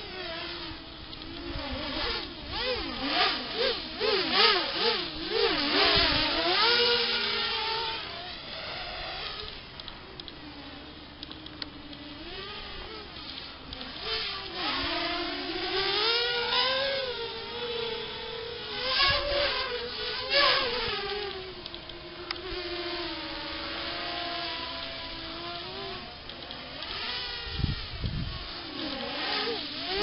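RG210 racing quadcopter's electric motors and propellers whining in flight. The pitch rises and falls with the throttle, wavering quickly a few seconds in.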